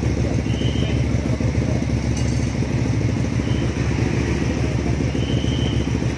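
A 250 cc V-twin cruiser motorcycle idling steadily through its stock exhaust.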